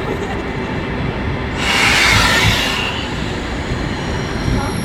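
PKP Intercity Pendolino (ED250) electric trainset arriving along the platform: a steady low rumble of wheels on rail, with a loud rush of noise about two seconds in as the front of the train passes, and a thin high wheel squeal setting in near the end.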